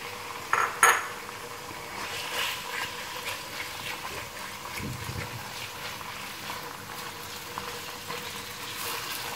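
Raw chicken strips sizzling in hot oil in a non-stick wok, stirred with a silicone spatula, with a couple of sharp knocks of the spatula against the pan about a second in.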